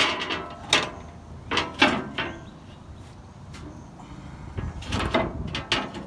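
A diamond-plate floor panel on a backhoe clanking as it is worked into place around the hydraulic valve bank: a run of sharp metal knocks and bangs, some ringing briefly, in two bursts with a lull between.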